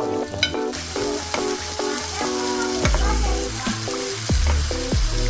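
Food sizzling in a hot frying pan, the sizzle starting just under a second in, under background music with a steady beat.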